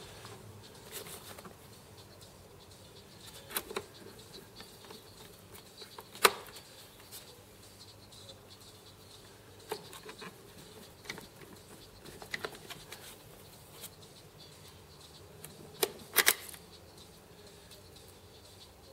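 Scattered small clicks and taps as self-tapping countersunk screws are driven in with a hand screwdriver and the screws and parts are handled. The sharpest tap comes about six seconds in, and a quick pair of clicks near the end.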